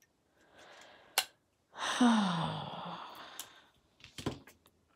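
A woman's long breathy sigh about two seconds in, her voice falling in pitch as it fades. Faint breath noise comes before it and a few small sharp clicks follow.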